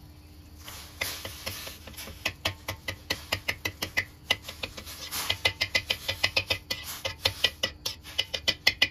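A cooking utensil knocking and scraping against a pan, about four quick knocks a second, as minced pork is stirred and broken up while it cooks in a little hot water.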